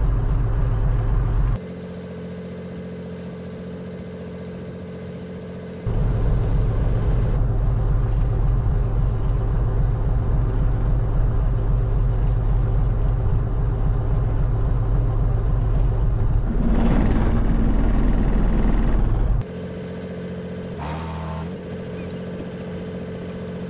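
Fishing boat's inboard engine running steadily with a low hum, dropping abruptly quieter twice and coming back up once. For about three seconds near the end a rushing hiss rises over it.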